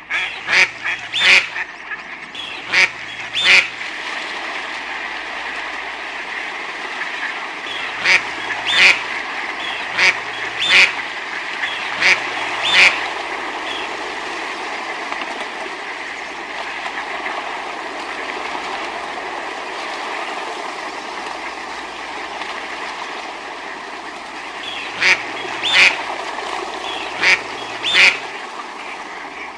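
Ducks quacking in three runs of several short, loud quacks (near the start, in the middle and near the end), with long pauses between, over a steady hiss.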